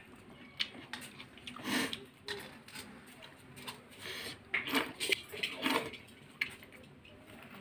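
A person eating by hand from a steel plate: scattered chewing and mouth sounds, fingers working through the food, and small clicks and scrapes against the plate.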